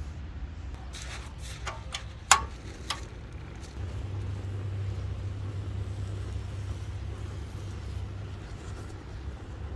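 A few knocks and clicks of a metal camping pot being handled and set onto the metal grate of a portable gas stove, with one sharp metallic clank that rings briefly. Then a steady low rumble.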